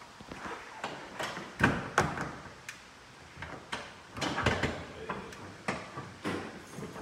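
Irregular knocks and clatters, with the loudest thumps about one and a half to two seconds in.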